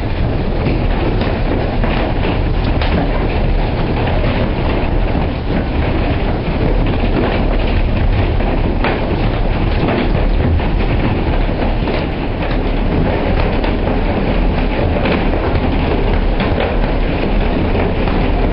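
Heavy hail mixed with rain pelting down: a steady dense roar of stones striking lawn, street and roofs, with scattered sharper clicks of single hits.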